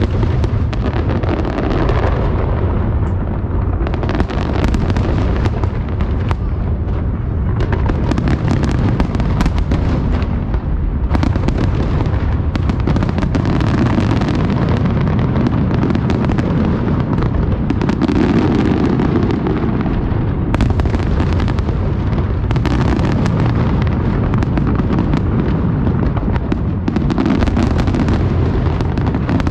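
Aerial fireworks shells going off in a dense, unbroken barrage of overlapping bangs.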